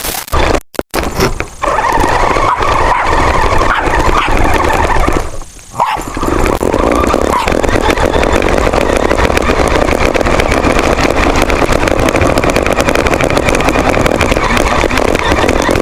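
RC rover driving over the ground, its drive motor and tires running loud and rough close to the onboard camera, with a farting noise that the owner puts down to its cracked front stretched tires. The sound cuts out briefly just after it starts and dips again around five seconds in.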